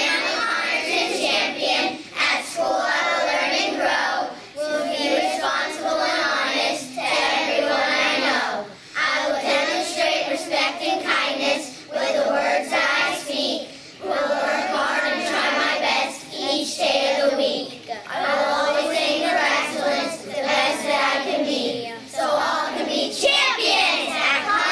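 A group of young children singing together in unison, in phrases a couple of seconds long with short breaths between.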